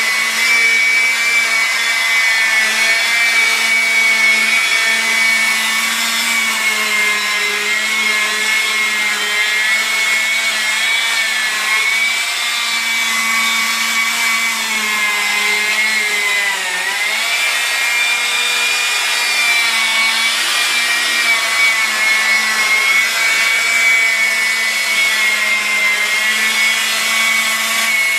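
Electric polisher with a foam pad buffing the paint of a car's front fender, its motor running with a steady whine. The pitch sags briefly about halfway through, then comes back up.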